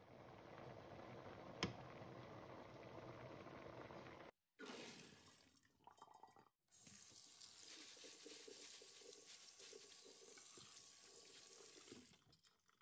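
Soaked red beans boiling in a pot of water, with one sharp click about one and a half seconds in; this is the first boil, whose water is thrown out. After a cut, tap water runs steadily onto the drained beans in a stainless mesh strainer.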